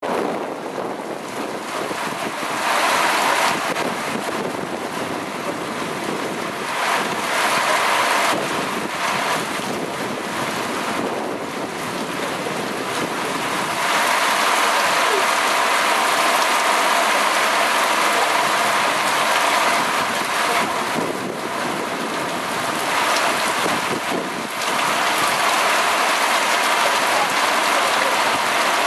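Heavy thunderstorm downpour: a steady hiss of rain with gusts of wind buffeting the microphone, growing louder about halfway through.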